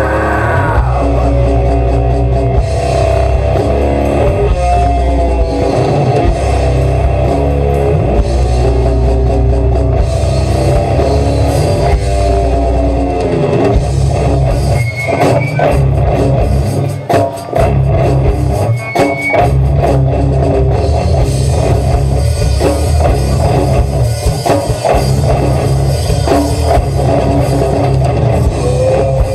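Live heavy rock band playing loud: distorted electric guitars, bass and a drum kit, with two short stops about halfway through.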